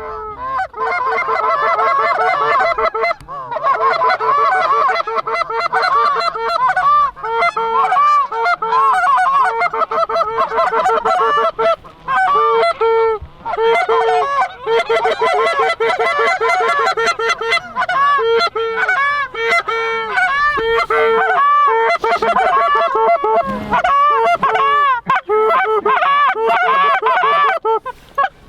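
Hand-held goose calls blown in fast, overlapping runs of honks and clucks, each note breaking from a low moan up to a high honk, imitating Canada geese to turn a flock toward the decoys. The calling is loud and nearly continuous, with a few short pauses.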